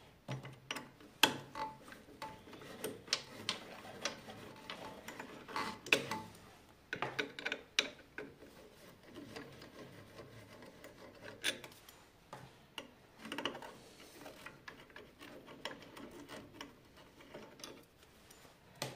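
Hand tools scraping and clicking against the steel cutterhead and knife of a Belmash 2200 three-knife thickness planer during a knife change. Irregular small clicks and rubbing, with a few sharper clicks.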